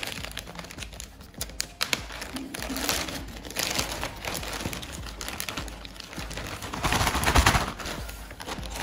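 Clear plastic zip bag crinkling and rustling in irregular crackles as hands handle and open it, loudest about seven seconds in.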